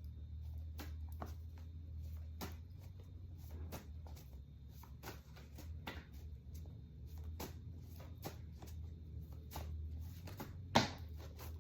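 Tarot cards being shuffled and handled: a run of short, irregular card snaps and taps over a steady low hum, with one sharper snap near the end.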